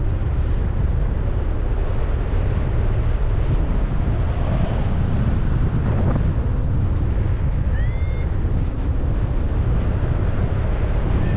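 Strong wind buffeting the microphone in flight: a loud, steady rushing rumble. A brief rising tone sounds about eight seconds in.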